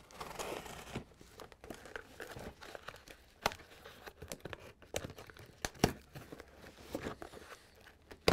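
Corrugated cardboard case being torn open by hand: cardboard and tape tearing and crinkling, loudest in the first second, followed by scattered sharp clicks and taps as the panel is pulled away.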